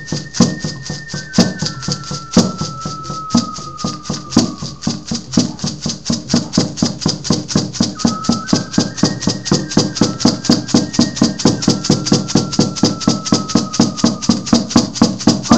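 Percussion with a rattle-like shimmer on each stroke, beaten about once a second and then quickening to a fast even pulse of about four strokes a second from around six seconds in. Long, high held tones slide slowly downward above the beat.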